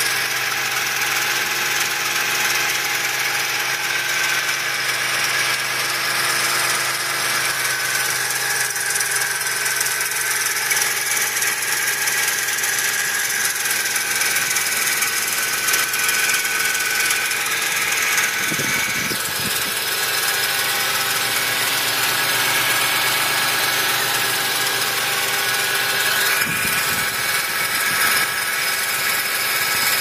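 The V6 engine of a 2004 Toyota Tacoma running steadily, heard up close at the serpentine belt and pulleys, with a strange noise that the owner is tracing in the belt drive.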